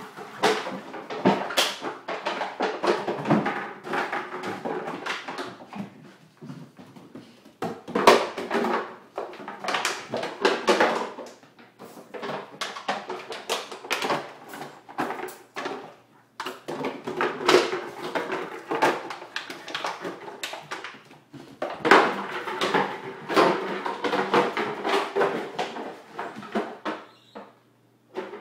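Ice cubes rattling and the soda bottle clattering and scraping on a wooden floor as a Rottweiler puppy bats, chews and pushes it around. The clatter comes in busy bursts with short lulls between them.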